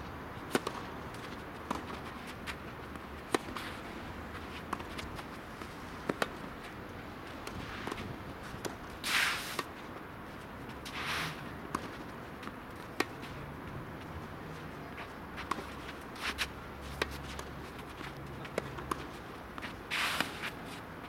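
Tennis rally: a serve, then irregular sharp pops of racket strings hitting the ball and the ball bouncing, over steady outdoor background. A few longer scraping sounds of footwork on the court stand out, the loudest near the middle and again near the end.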